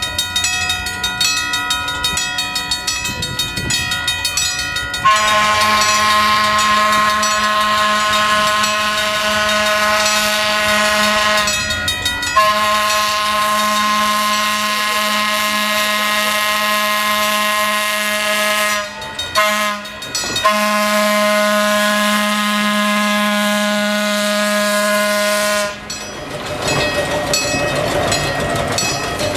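Air horn of Pacific Electric interurban car 418 sounding long, long, short, long blasts, the grade-crossing signal, as the car approaches. After the last blast the car's wheels roll past on the rails.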